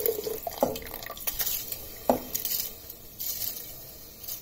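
Soaked rice and its water pouring from a glass bowl into a steel pressure cooker of tomato masala. The water trickles off just after the start, then wet rice slides and splashes in, with two sharp clinks of dishware about a second and a half apart.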